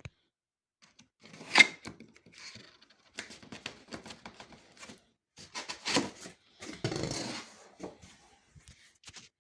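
Cardboard mattress delivery box being opened by hand: irregular tearing, scraping and rustling of cardboard and packing, with a sharp loud rip about a second and a half in and a longer tear about seven seconds in.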